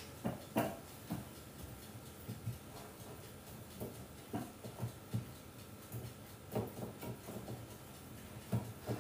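Hands working a piece of butter on a kitchen counter: soft, scattered taps and light rubbing, with a faint steady high tone underneath.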